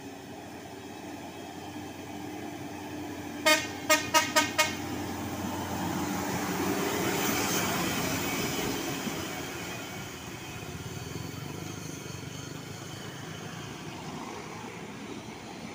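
A vehicle horn sounds five quick short toots, then a heavy dump truck passes close by, its engine and tyre noise swelling to a peak and fading away.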